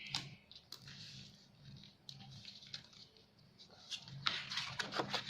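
Quiet handling of a sheet of paper being folded: scattered crinkles and taps, then a denser run of crackling and creasing in the last second or so.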